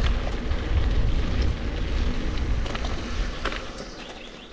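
Wind buffeting an action camera's microphone while riding a mountain bike: a steady low rumble with scattered small clicks and rattles, easing off toward the end.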